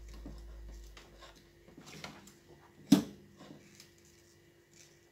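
Small ticks and taps from handling a circuit board and soldering iron, with one sharp click about three seconds in, over a steady faint hum.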